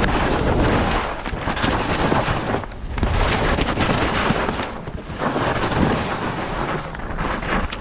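Skis carving turns down firm, wind-packed snow: a loud scraping rush of the edges in long swells, easing briefly between turns about every two seconds, with wind buffeting the microphone.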